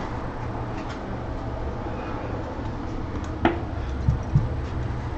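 Parts of an Ender 3 3D printer kit being handled while the base is set up: a sharp knock about three and a half seconds in and two light clicks shortly after, over a steady low hum.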